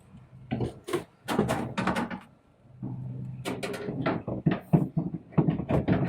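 A string of irregular knocks and clatters from things being handled and set against one another, with a low hum in two stretches.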